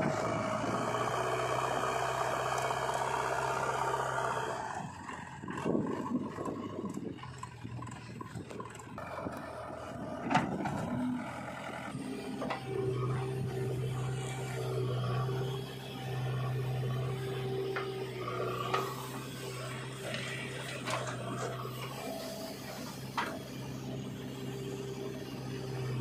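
JCB 3DX backhoe loader's diesel engine running steadily under load, with scraping of soil and a few sharp knocks as the bucket works the ground. The engine drone eases off for several seconds about four seconds in, while the scraping comes to the fore, then holds steady again from about halfway on.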